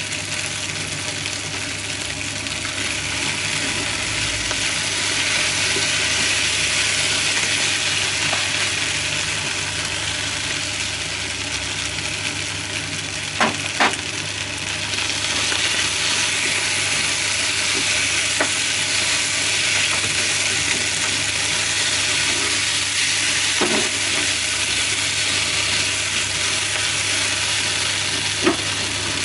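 New potato strips, green beans and bacon sizzling in a frying pan while being stirred and turned with long cooking chopsticks, a steady frying hiss with a low hum underneath. A few sharp clicks cut in, two close together about halfway through.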